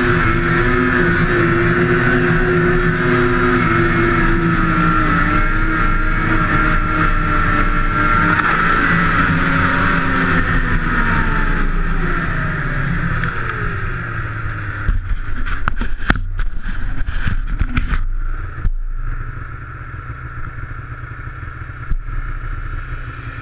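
Two-stroke snowmobile engine running hard, a steady high note whose pitch then slides down over several seconds. Near the end come a cluster of sharp clicks or knocks, then a lower, quieter steady hum.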